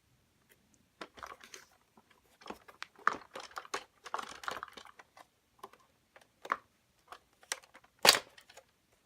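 Plastic shell of a robot vacuum being pried apart and handled: an irregular run of small clicks, creaks and crackles, with one sharp, louder snap near the end.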